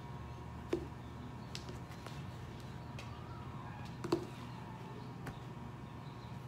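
Steady low room hum with a few light knocks and ticks from a pair of black sneakers being handled. The two loudest knocks come about a second in and about four seconds in.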